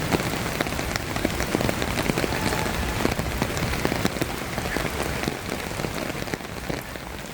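Steady rain, a dense patter of drops striking close by, easing slightly near the end.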